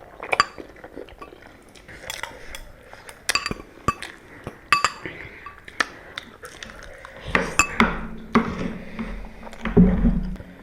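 Eating utensils clinking and scraping against bowls, a string of sharp clinks, some ringing briefly. A denser, lower clatter and rustle joins in for the last three seconds.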